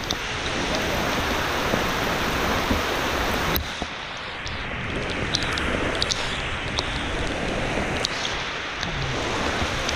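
Heavy downpour of rain: a steady, dense hiss of rain falling, with scattered ticks of drops hitting close by. The hiss drops a little about three and a half seconds in.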